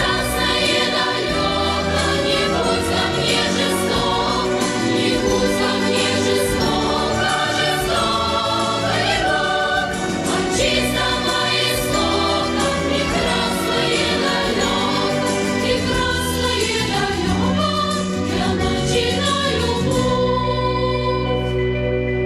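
Background music: a song with a choir singing over instrumental accompaniment. About 20 seconds in it changes to softer, sustained tones.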